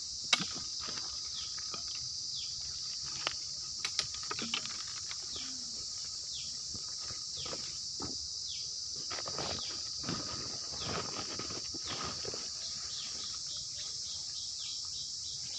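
Steady high-pitched chorus of insects, with many short falling chirps over it and a few sharp clicks in the first few seconds.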